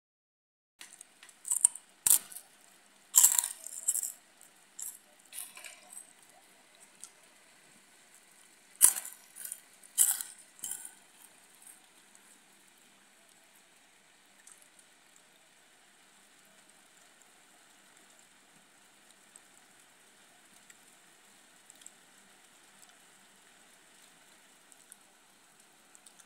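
Light rain falling as a faint, steady hiss, with a run of loud, sharp taps and clicks over the first ten seconds or so.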